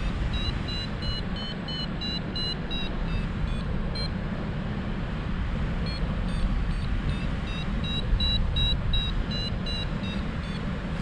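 Paragliding variometer beeping, a quick train of short high beeps that pauses for a couple of seconds near the middle, over steady wind noise on the microphone in flight.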